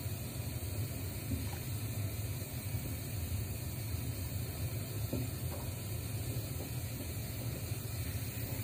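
Saucepan of banana kolak in palm-sugar syrup simmering on a gas stove: a steady low rumble and hiss, with a few faint bubble pops.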